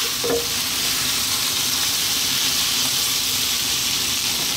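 Fried battered fish pieces sizzling steadily in a reducing soy, ketchup and garlic sauce in a wok.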